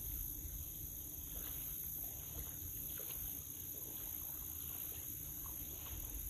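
Low wind rumble on the microphone, with faint splashing of water as people wade and drag a seine net through shallow river water.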